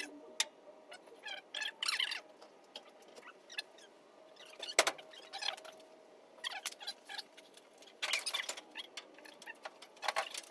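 Scattered clicks, light metal taps and rustles of car trim being handled and fitted against the body, with one sharp knock about five seconds in.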